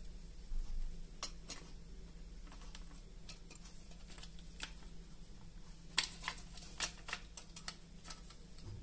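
Hard plastic parts of an Opel Zafira clock/temperature display unit clicking and rattling as they are handled and fitted together: the black housing pressed around the circuit board. The clicks are scattered, with a cluster of sharper ones about six to seven seconds in.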